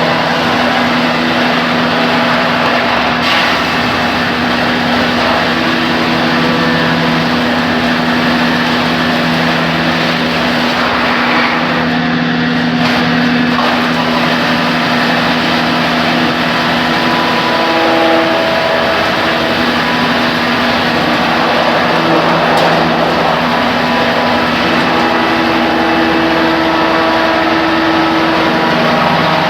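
Wood sawdust machine running steadily: a loud, even mechanical noise with a constant hum underneath.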